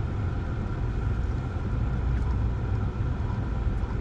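Steady low rumble inside a car waiting to pull out: its engine idling, with road traffic passing outside.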